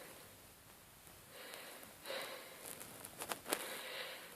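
A man breathing audibly in and out, about four slow breaths with a few faint clicks, in the laboured breathing after an asthma attack, eased by a nebulizer but with mucus still moving in his chest.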